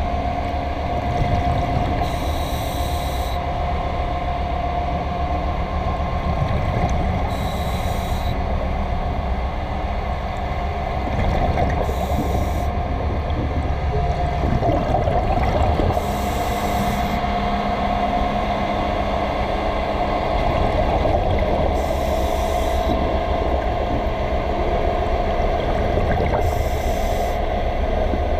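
Underwater, a scuba diver's regulator breathing: a short hiss of exhaled bubbles about every four to five seconds, six times, over a steady low rumble and hum.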